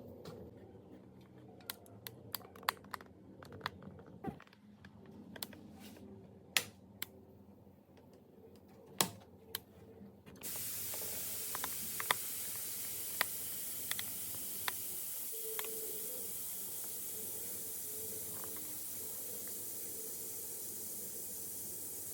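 Scattered light clicks and taps, like small parts being handled, then about halfway through a steady hiss starts suddenly, with a few more clicks over it.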